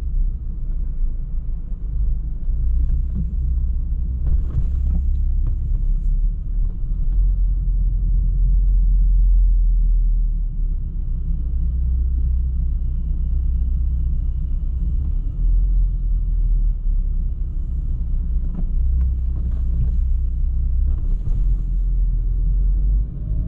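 Volkswagen Golf R 7.5's turbocharged 2.0-litre four-cylinder engine running at low speed, a steady low rumble as the car creeps through a multi-storey car park. A few brief high squeaks come in a few seconds in and again near the end.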